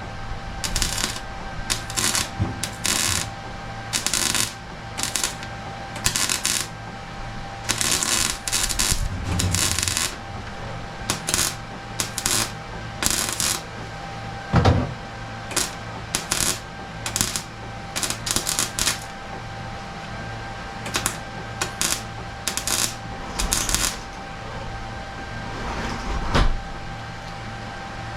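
MIG welder laying short tack welds and brief beads, each a crackling burst lasting a fraction of a second to about a second, with irregular pauses between them over a steady shop hum.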